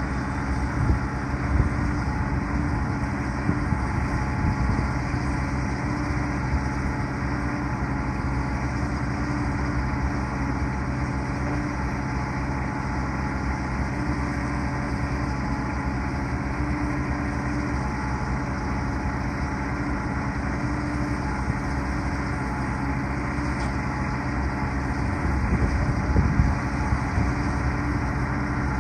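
Heavy diesel engine idling steadily, with a few louder knocks in the first seconds and a rougher patch near the end.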